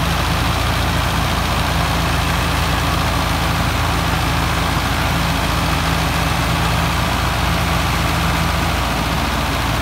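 Two diesel tractor engines, a Massey Ferguson 385 and a Russian-built tractor, running steadily and working hard under heavy load as they pull a loaded trolley across a field together, the front tractor towing the other on a chain.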